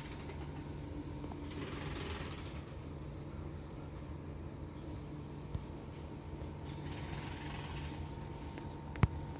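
A bird calling with short, high chirps that sweep downward, one every second or two, over a steady low hum. A sharp click sounds near the end.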